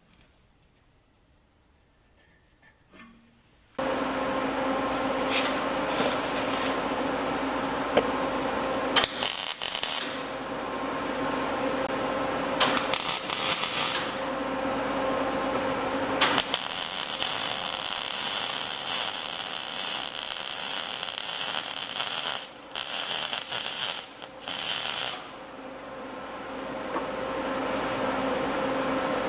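Electric arc welding of the steel exhaust pipe joints at a replacement flex pipe. The arc starts about four seconds in and runs in long stretches with a steady buzz, broken by a few short stops between beads.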